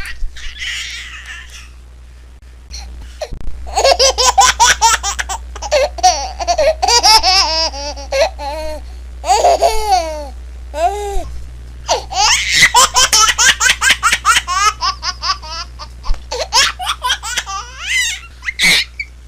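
Baby laughing in two long fits of quick, high-pitched, rhythmic laughs, after a few quieter breathy seconds at the start.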